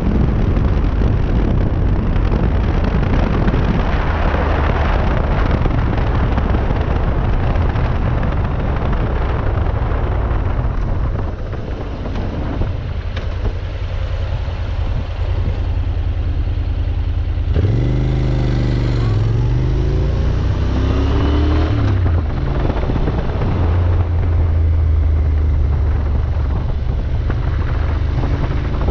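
Motorcycle engine with wind and road rush, heard from the rider's seat while cruising. About twelve seconds in it eases off and goes quieter, then about eighteen seconds in it pulls away hard, the engine note rising and dropping in steps as it changes up through the gears, before settling to a steady cruise.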